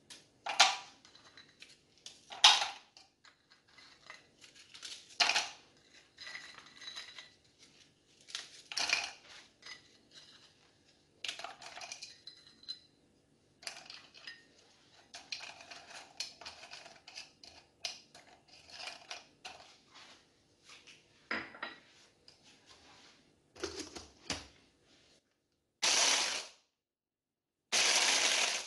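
Dry biscuits snapped by hand and dropping in pieces into a plastic chopper bowl: a string of irregular crisp snaps and light clattering clicks. Near the end, the 1000 W electric chopper attachment of a Moulinex hand blender runs in two short pulses, starting to crush the biscuits.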